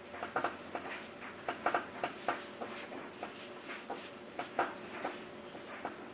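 Irregular light clicks and ticks, small hard parts being handled and fitted, over a faint steady hum.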